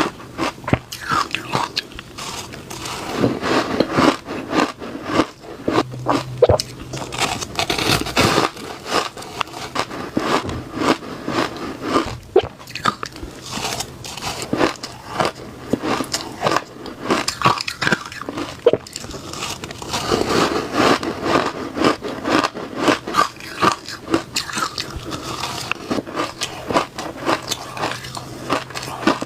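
Shaved ice from a refrigerator freezer being bitten and chewed close to the microphone: a continuous run of crisp, irregular crunches.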